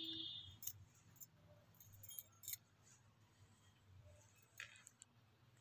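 Near silence, with a few faint short clicks and rustles of cotton garments being handled and laid out on a pile of clothes.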